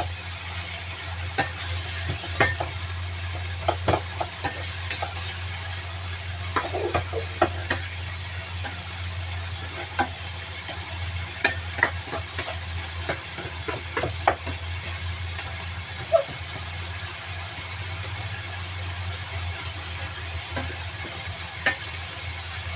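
A spatula scrapes and taps against a pan while dragon chives fry with a sizzling hiss. The clicks come in irregular clusters over a steady low hum.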